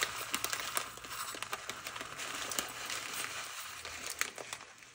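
Dry orzo pasta pouring from a plastic bag into a metal measuring cup: a continuous patter of many small grains ticking into the cup, with the plastic bag crinkling.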